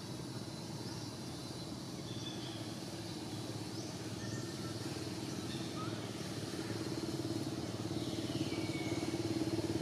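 A motor vehicle engine running steadily, growing louder in the last few seconds as it draws nearer.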